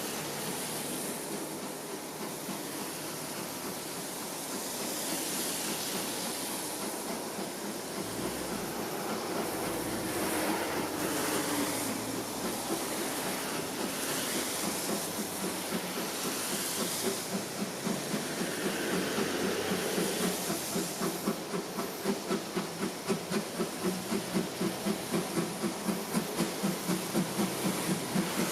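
Steam locomotive C11 123 working under steam: a steady hiss of steam that grows louder. In the last several seconds its exhaust beats come through as a regular chuffing, about three a second.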